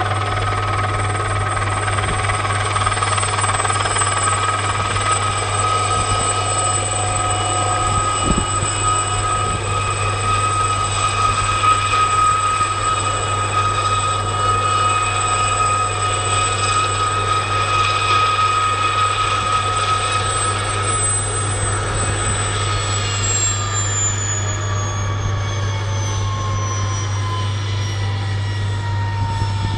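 Aérospatiale SA 342 Gazelle helicopter running as it sets down and sits on the apron: a steady turbine whine and rotor noise with high steady tones. About 23 seconds in, the whine starts falling in pitch as the engine winds down.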